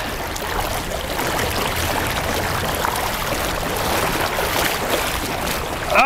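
River water rushing and sloshing around a person wading waist-deep against a strong current, a steady noise.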